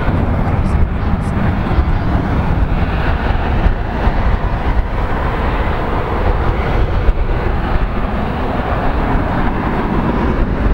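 Porter Embraer E2 airliner taxiing, its Pratt & Whitney PW1900G geared turbofans giving a steady low rumble at low thrust. Wind buffets the microphone.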